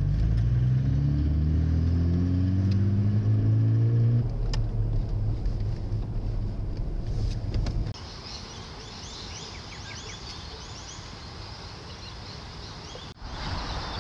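A motor vehicle's engine heard from inside the cabin, its pitch rising as it accelerates for about four seconds and then running steadier. About eight seconds in it gives way to quieter outdoor ambience with high chirping birds.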